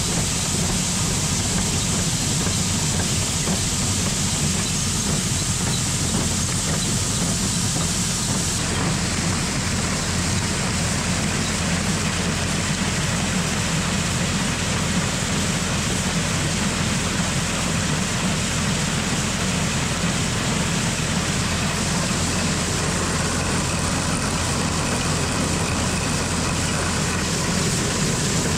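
Farm machinery engine running steadily under load, with a deep continuous hum and a broad mechanical din. About nine seconds in, the upper part of the sound changes abruptly.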